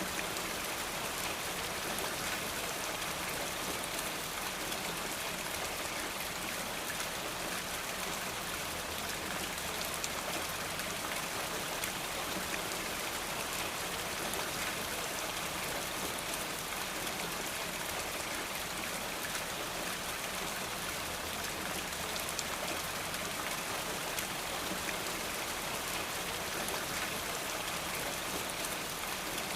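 Steady rainfall, a dense patter of raindrops with a constant hiss.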